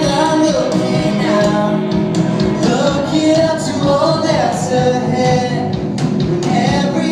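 A song playing, with singing over instrumental backing.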